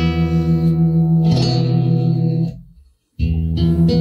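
Amplified Yamaha NTX700 nylon-string electro-acoustic guitar strummed once. The chord rings and fades out, then a second chord is strummed about three seconds in. The pickup output is loud, as it is now while the preamp's faulty capacitor is heated.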